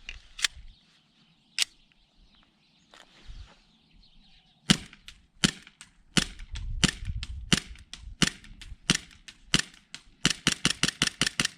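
Airsoft Glock pistol being test-fired, sharp cracks of single shots, two early, then a steady series about two-thirds of a second apart, and a rapid string of about eight shots near the end as the 17-round magazine is emptied.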